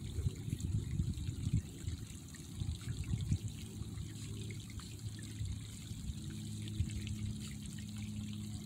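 Shallow muddy water running and trickling down a dirt channel, with an uneven low rumble underneath.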